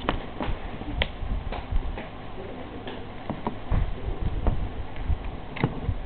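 Hamster gnawing a hard milk-bone chew treat: irregular sharp ticks and clicks of its teeth on the chew, with a few low knocks.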